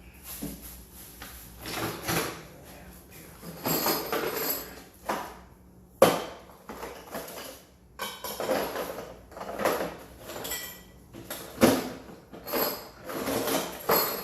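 Water lines being cut by hand: repeated scraping strokes of a cutting tool on the pipe, roughly one a second, with a few sharp metallic clicks.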